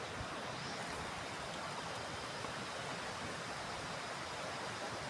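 Fast-flowing mountain river rushing over rocks: a steady, even wash of water noise.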